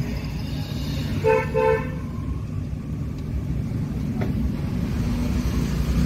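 Two short car-horn toots about a second in, over the steady low rumble of the car's engine and road noise heard from inside the cabin.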